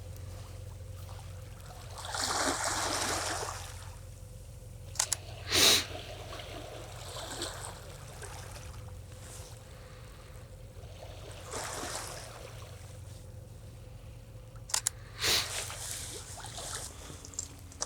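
Quiet waterside ambience with faint trickling water and a steady low rumble, broken by a few short sharp clicks and soft rustling swells.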